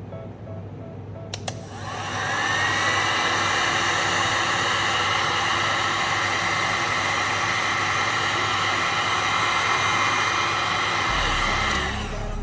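A handheld electric motor tool clicks on, whines up to speed and runs steadily for about ten seconds, then stops shortly before the end.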